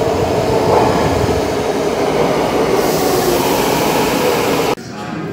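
Metro train running: a steady loud rumble of wheels and car noise, with a hiss joining in about three seconds in. The sound cuts off suddenly near the end, leaving a quieter background.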